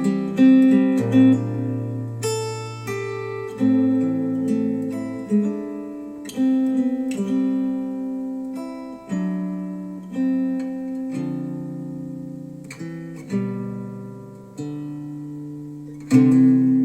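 Acoustic guitar music played back through Wharfedale Denton 80th bookshelf speakers: chords struck one after another, roughly every second or so, each ringing out and fading before the next.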